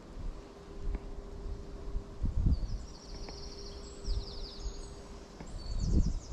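Wind buffeting the microphone in two gusts, about two seconds in and again near the end, while a small songbird sings high, rapid trilled phrases from about two and a half seconds in.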